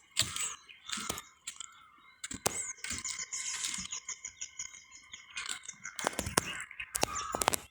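Birds chirping and singing, with a run of quick repeated high notes in the middle, mixed with scattered crunching clicks.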